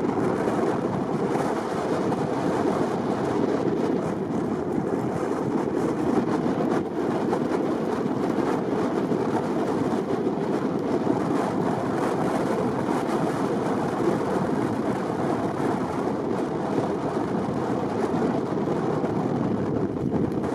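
Strong wind blowing across the microphone, a steady rushing noise with no letup.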